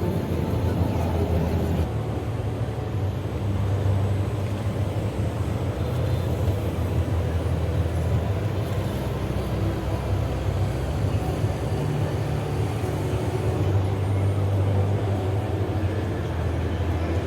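Scale RC construction machines running: a steady low engine-like rumble that swells and eases.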